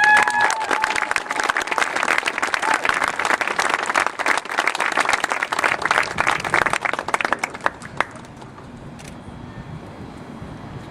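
Audience clapping and cheering, with a rising whoop at the start. The applause dies away after about eight seconds.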